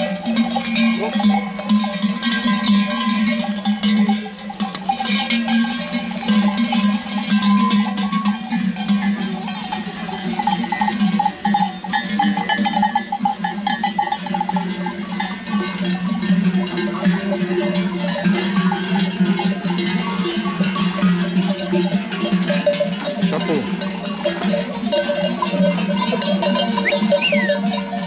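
Many bells on a walking flock of sheep and goats clanging together without pause, a steady jangle of many different pitches.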